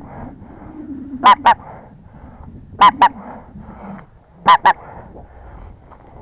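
Loud two-note goose honks, repeated in pairs about every one and a half seconds, over the fainter clamour of a large flock of greater white-fronted geese calling.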